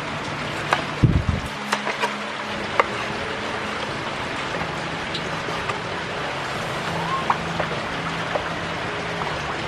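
Knife chopping chicken giblets on a wooden cutting board: a cluster of sharp taps with a dull thump from about one to three seconds in, then only a few scattered taps. Under it runs a steady hiss of rain.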